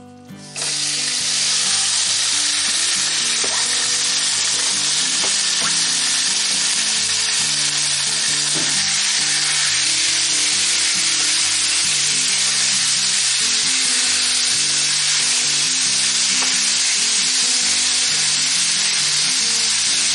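Sliced grouse breast dropped into a preheated pan of oil about half a second in, setting off a loud, steady sizzle of frying meat that keeps on as it is stirred with a wooden spatula.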